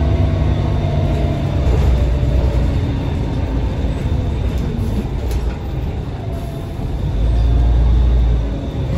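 The rear-mounted Scania OSC11 11-litre six-cylinder turbocharged CNG engine of a Scania L113CRB bus running, heard from inside the passenger cabin as a low drone. It eases off about five seconds in, then swells to its loudest near the end.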